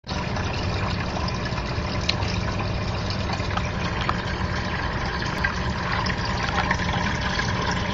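Hang-on-back aquarium filter's waterfall outflow splashing steadily into shallow tank water, churning up foam and bubbles.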